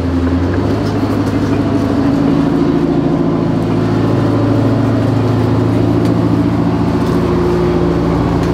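Detroit Diesel 8V-71T two-stroke V8 diesel in an M3 Grant tank running as the tank drives slowly. The engine note rises about half a second in, then holds steady. The engine is passing unburnt fuel, the sign of a fuelling problem under its stress test.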